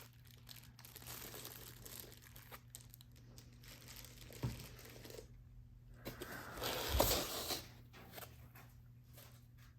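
Packaging crinkling and rustling as parts are handled and unwrapped, faint and intermittent, with a louder stretch about seven seconds in.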